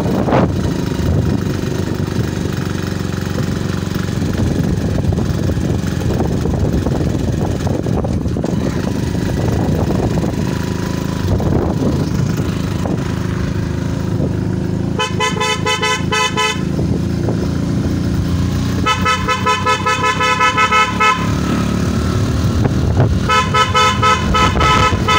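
Motorcycle running steadily along a road, with engine, tyre and wind noise. About fifteen seconds in a horn sounds three times, each blast about two seconds long with a rapid fluttering tone.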